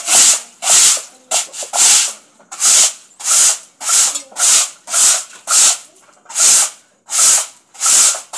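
Bristle broom scrubbing a wet concrete floor in short, even back-and-forth strokes, about two a second.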